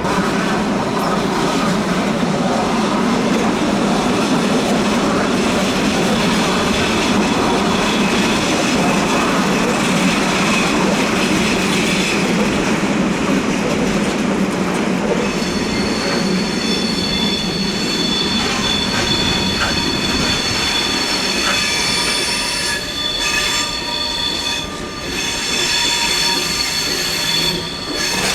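A passenger train rolling slowly through a tight curve, its wheels rumbling on the track and its wheel flanges squealing hard against the rails. The high squeal tones grow stronger about halfway through.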